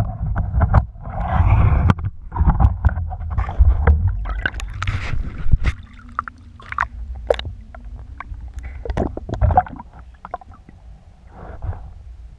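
Water sloshing and gurgling around a speargun-mounted camera in its waterproof housing as it breaks in and out of the surface, with a low rumble and many sharp clicks and knocks on the housing. The sound drops quieter and duller near the end once the camera is back under water.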